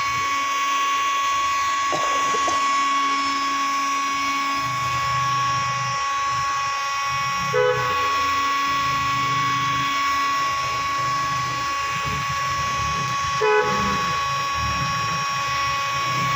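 Electric hot-air gun blowing steadily with a high motor whine and hiss while the plastic bumper is heated soft to push out a dent. Twice, about 7.5 and 13.5 seconds in, a short toot cuts in over it.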